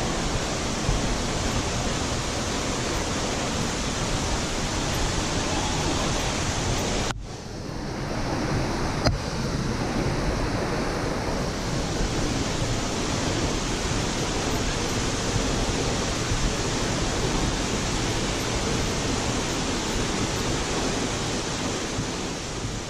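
Steady rush of falling water from a waterfall, with a sudden short dip about seven seconds in before the rush carries on.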